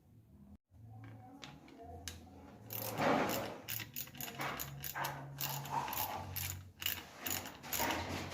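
Irregular clicking, rattling and scraping of the hard parts of a cordless impact driver being handled, louder from about three seconds in.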